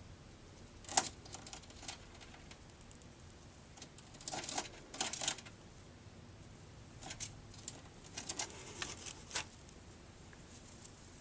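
A budgerigar bathing, splashing and fluttering in a shallow water dish: bursts of light pattering and splashing clicks, once about a second in, again around the middle, and a longer run near the end.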